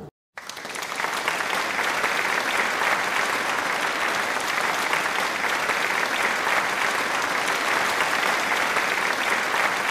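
Applause, many hands clapping, starting after a brief silence and swelling over the first second, then holding steady.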